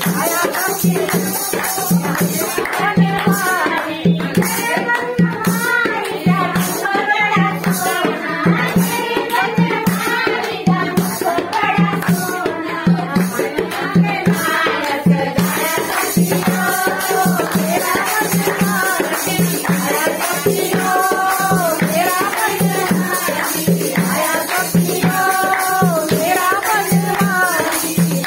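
Group of women singing a devotional bhajan, with hand clapping, rattling percussion and a steady beat of about one pulse a second.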